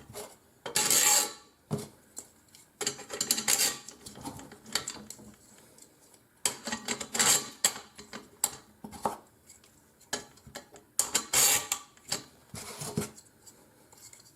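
Small metal parts clinking, scraping and clicking in irregular bursts as spool-holder pieces and wing nuts are fitted onto an aluminium frame.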